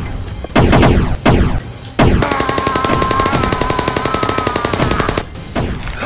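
Rapid machine-gun fire sound effect for about three seconds, with a man yelling over it, cutting off suddenly. It follows two short, loud bursts in the first second and a half.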